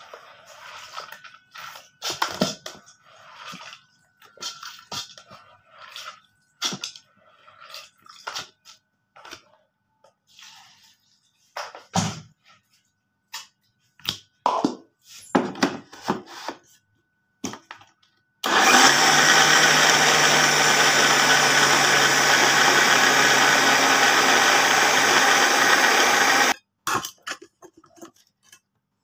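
Electric mixer grinder grinding soaked urad dal (biri) with water into bada batter: a loud, steady run of about eight seconds that starts and stops abruptly, well past halfway through. Before it come scattered knocks and clatter as the jar is filled and handled.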